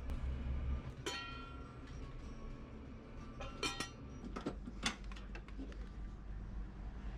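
Scattered light clicks and knocks. About a second in comes one clink that rings briefly, like glass or metal being struck. A low steady hum runs underneath.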